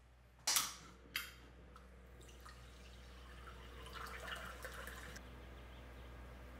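Canned sparkling water poured into a glass, splashing steadily for a few seconds. Two short, sharp sounds come just before it, about half a second and a second in, and are the loudest thing heard.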